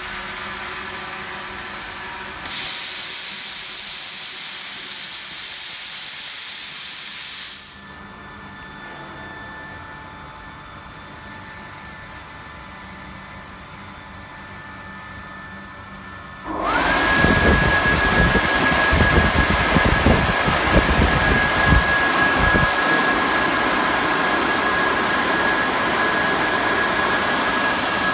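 Vacuum thermoforming machine working: a loud hiss of rushing air for about five seconds, then a quieter stretch of machine hum. A little past halfway a motor starts with a quick rising whine that settles into a steady high tone over loud rushing air.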